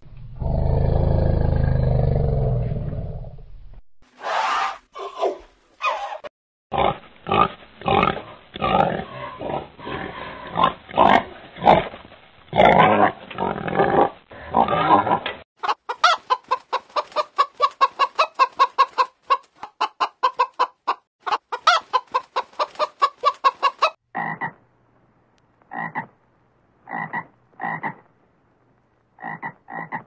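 A run of animal calls: an elephant's deep call for the first few seconds, then chickens clucking in quick repeated notes through the middle, then a toad giving short separate croaks in the last few seconds.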